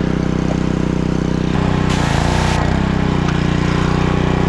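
Pressure washer's small engine running steadily, its note shifting as it takes load about a second and a half in; just after, a brief burst of hissing spray from the walnut-shell blasting attachment, under a second long.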